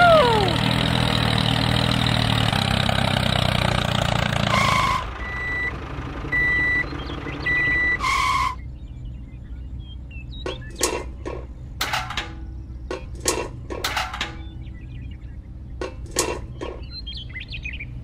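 Engine sound of a miniature toy tractor pulling a concrete-mixer trailer, running steadily for about five seconds, then three high reversing beeps. In the second half, a string of light clinks and knocks as the small mixer and metal buckets are handled.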